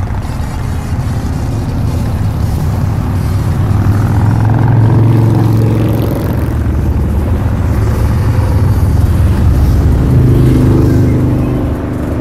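Road vehicle engines running, with traffic including motorcycles passing close by. The low rumble swells twice as vehicles go by.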